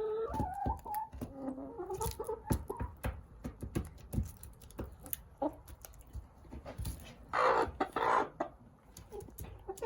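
Chickens pecking at eggshells, with many sharp clicks of beaks striking shell, and soft clucking in the first few seconds. A louder rustling burst comes about seven seconds in.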